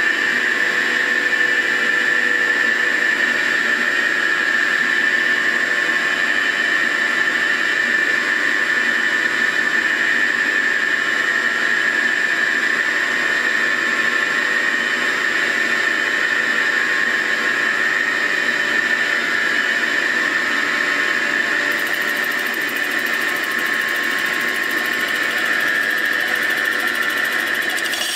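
CNC mill boring out a cylinder of a Lotus 910 aluminium engine block, with the boring bar cutting in the bore and giving a steady squeal.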